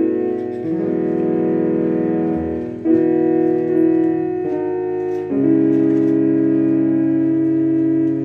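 Keyboard playing slow, held chords, the chord changing four times.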